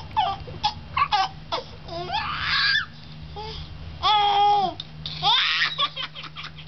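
A toddler laughing hysterically in short, high-pitched squeals and giggles, with a longer held shriek about four seconds in.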